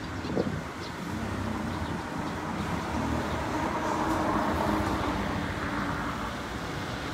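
Road traffic noise: a steady vehicle rumble that swells about four seconds in, as of a vehicle passing, with a brief knock just after the start.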